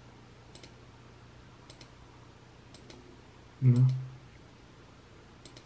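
Computer mouse button clicking about five times, each click a quick double tick, as permission checkboxes are set. About three and a half seconds in comes a short voiced sound from a person, louder than the clicks, over a faint steady low hum.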